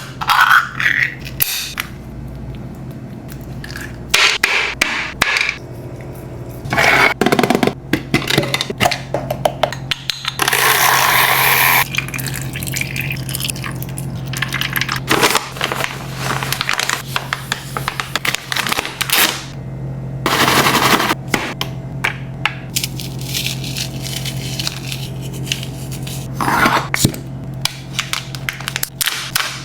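Dog meal being made up by hand: a string of clicks, knocks and scrapes from food containers, utensils and a bowl, with three longer rushing bursts, the longest about a second and a half, around a third of the way in. A steady low hum sits beneath.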